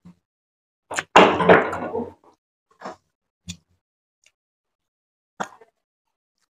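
Close-miked eating sounds: a loud burst of chewing and mouth noise about a second in, then a few short, separate clicks as fingers work rice on the plate.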